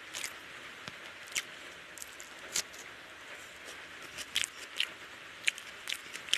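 Close-up eating sounds: irregular wet smacks and small clicks as curry-soaked basmati rice is squished and mixed by hand and chewed, over a steady faint hiss.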